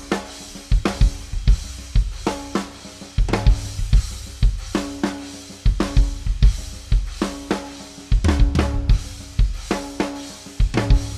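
A drum kit is played in a steady groove: bass drum, snare and cymbal strikes come several times a second. A 16-inch Bosphorus raw hand-hammered crash, a dark "crash of doom" style prototype, washes among the strikes.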